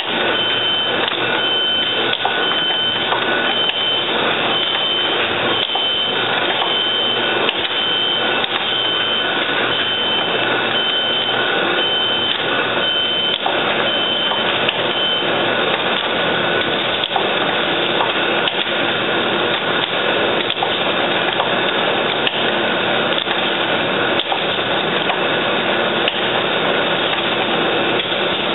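Automatic hypodermic needle assembly machine running: a steady, dense mechanical clatter full of small clicks. A repeated high beep sounds about once a second and stops about halfway through.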